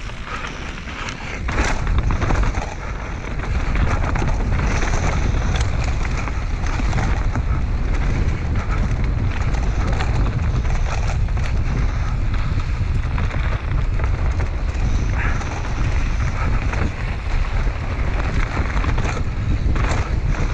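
Mountain bike descending a dirt trail at speed: wind buffeting the microphone and a steady rumble of tyres over the dirt, with scattered sharp knocks and rattles from the bike over bumps.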